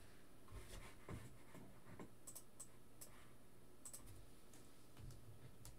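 Near silence, with faint scattered clicks of plastic card holders and trading cards being handled.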